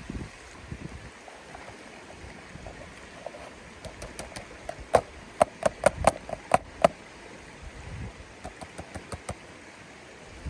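River flowing with a steady rush, and a quick run of about eight sharp clicks or knocks from about five to seven seconds in, with a few fainter ones a little later.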